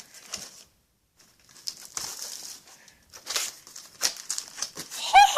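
Cardboard and packaging being torn and ripped open by hand, in irregular rustling, crinkling tears. Near the end a high-pitched excited voice begins.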